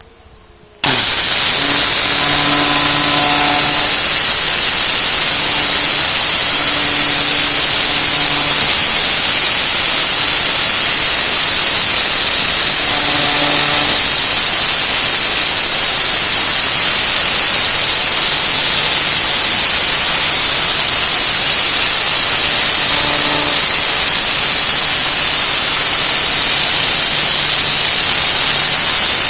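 Pressure washer jet spraying against brickwork: a loud, steady hiss of high-pressure water that starts abruptly just under a second in. A low hum comes and goes underneath it.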